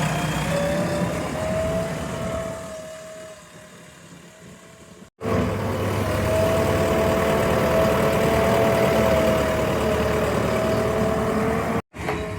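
JCB 3DX backhoe loader's diesel engine running steadily, with a steady whine above the engine rumble. The sound cuts out abruptly about five seconds in and again near the end.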